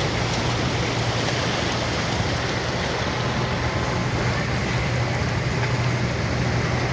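Steady sound of a vehicle on the move: a constant low engine hum under even wind and road noise.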